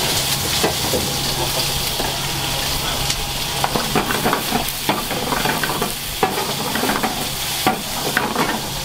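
Food sizzling in a hot frying pan on a restaurant kitchen range, with irregular knocks and scrapes as the food is stirred in the pan, over a steady low hum.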